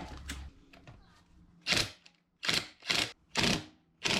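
Socket ratchet wrench clicking in a run of short back-strokes, about five quick bursts at uneven spacing, as engine bolts are worked loose.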